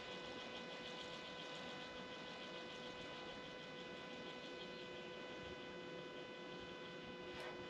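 Faint steady electrical hum or whine, one pitch with evenly spaced higher overtones, over low hiss, with a single short click near the end.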